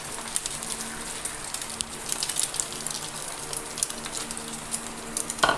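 Milk-and-egg-soaked bread slices sizzling and crackling in ghee on a hot flat pan, over a faint steady hum, with a brief louder sound near the end.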